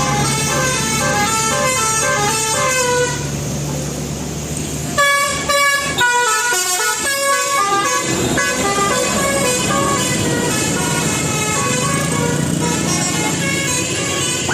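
Bus telolet horn, a Basuri multi-tone musical air horn, playing quick stepping melodies. It pauses about three seconds in, gives a choppy run of loud blasts about five seconds in, and then goes back to tunes.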